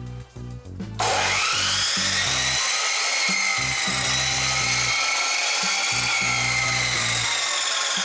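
Electric abrasive cut-off saw switched on about a second in, its motor whine rising as the disc spins up, then running steadily under load as the disc cuts into a metal muffler pipe.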